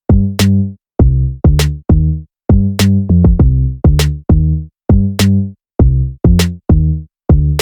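Background electronic music with a drum-machine beat: short, chopped bass-heavy notes in a steady rhythm, with a sharp hit about every second and a bit.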